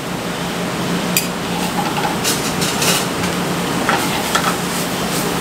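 Vegetables and butter sizzling in a sauté pan over a gas burner, with a steady low hum underneath and a few light clicks of a utensil.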